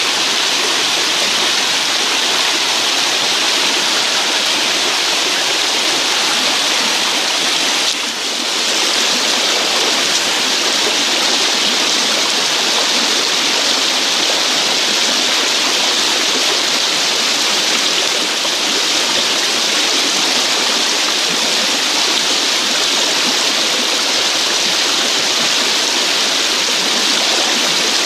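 Shallow river current rushing and churning over rocks: a steady, loud rush of flowing water, briefly dipping about eight seconds in.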